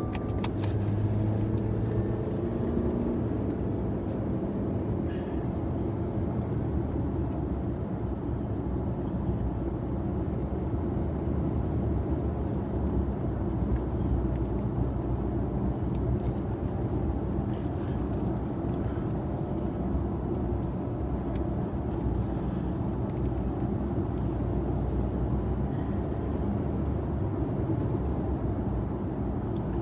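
Steady low rumble of a vehicle on the move, heard from inside the cabin.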